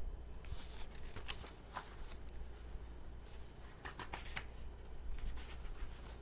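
Pages of a picture book being handled and turned: a series of short, papery swishes and rustles.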